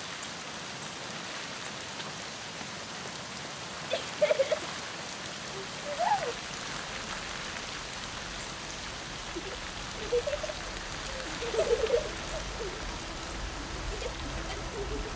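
Steady rain falling. A few short pitched calls cut through it, the loudest a few seconds in and near the end.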